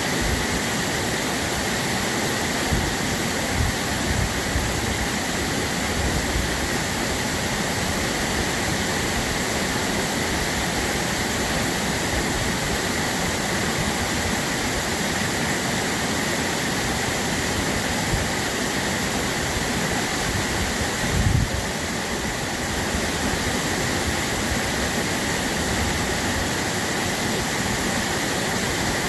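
Flowing water of a babbling stream, a steady even rush. A brief low thump stands out about two-thirds of the way in.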